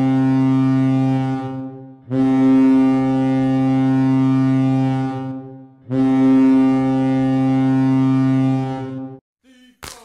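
Chippewa Steel's hockey goal horn sounding a deep, steady note in long blasts. The first blast is already running and ends about a second and a half in, followed by two more blasts of about three and a half seconds each with short gaps between them.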